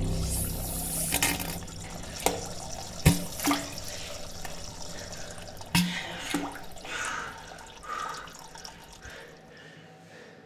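A low rumbling sound fades out in the first second. Then comes a string of short plops and splashes into toilet-bowl water, about half a dozen over the next seven seconds, the loudest about three seconds in.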